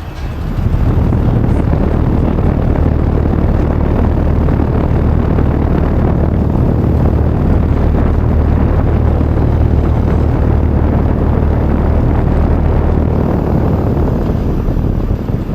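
Outdoor unit of a Midea split air conditioner running at full setting, its compressor giving a steady low hum under the rush of the condenser fan. It comes up loud about half a second in and eases off near the end.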